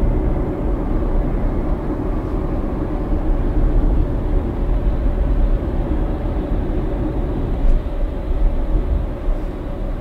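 Steady road and tyre noise heard inside the cabin of a 2021 Tesla Model Y Long Range electric car cruising at highway speed, mostly a low rumble.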